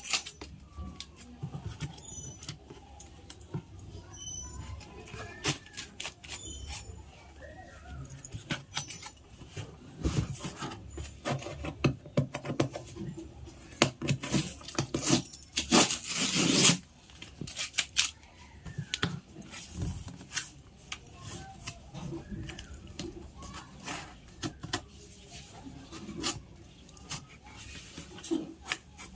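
Unpacking a boxed mixer grinder: a string of clicks, knocks and rustles of cardboard and plastic packaging being handled. Around the middle comes a louder rasping, tearing noise of two or three seconds that cuts off suddenly.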